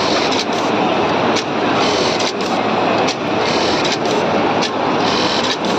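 Computerised button sewing machine running at high speed: a dense, steady mechanical clatter with sharp clicks a few times a second.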